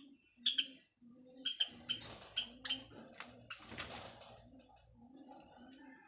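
White Java sparrows chirping in short, sharp clicks over a low repeated cooing note, with a stretch of rustling about two seconds in.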